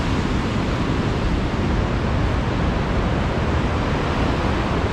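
Steady rush of a fast-flowing mountain river running as whitewater over rocks.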